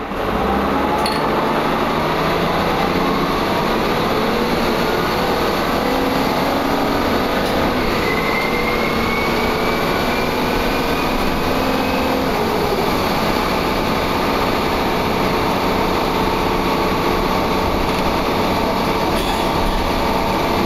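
Wright Cadet single-deck bus heard from on board, its engine and drivetrain running loud as the bus pulls away and accelerates. The pitch climbs, drops with a gear change about twelve seconds in, then holds steady, and a thin high whine rises alongside it just before the change.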